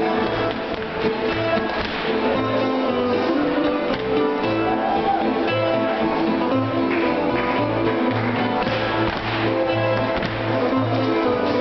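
Live contra dance band playing a tune with a steady beat: guitar over a bass line pulsing about twice a second, with dancers' feet tapping on the floor.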